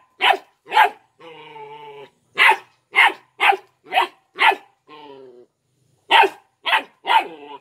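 A three-month-old Belgian Malinois puppy barks about ten times in quick bursts of sharp, high yaps. Between the bursts come two longer, quieter drawn-out growls.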